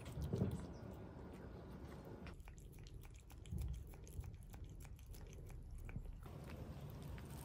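Cats licking wet boiled-chicken paste from the tip of a squeezed plastic bag: quick, wet tongue clicks and smacks in a rapid run. Two soft low bumps, one near the start and one about three and a half seconds in, are the loudest sounds.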